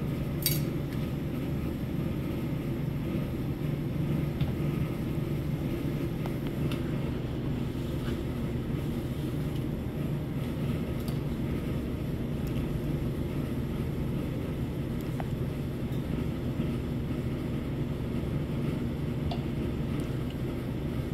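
Steady low background hum, like machinery running in the room, with a sharp click about half a second in and a few faint light ticks later on.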